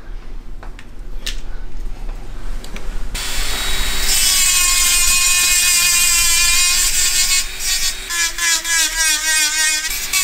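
Jeweller's micromotor rotary handpiece starts suddenly about three seconds in and runs at a steady high whine. Near the end its pitch wavers as it works a silver ring, smoothing the surface over the soldered seam, and it stops just before the end.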